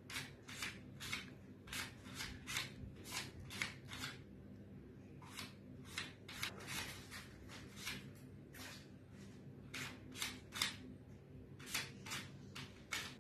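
Plastic tiles of a Rubik's Race sliding-tile puzzle clicking as they are pushed around the board, in quick irregular runs of sharp clicks with short pauses between them.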